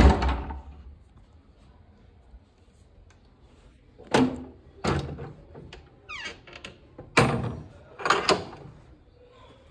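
A few separate knocks and thuds a second or more apart, with a short creak between them.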